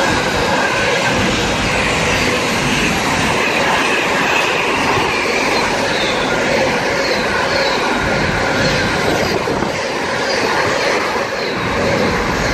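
Intermodal freight train hauled by a pair of Class 90 electric locomotives passing close at speed, with a steady, loud rush and rattle of wagons running over the rails.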